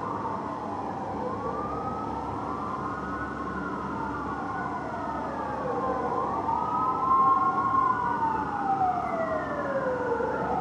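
Fire engine and ladder truck sirens wailing, two or more sirens overlapping as they rise and fall in pitch. They grow louder about halfway through, and one sweeps down in a long fall near the end.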